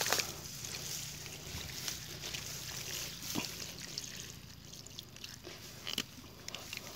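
Running, trickling water, a steady hiss that slowly fades, with a few faint clicks.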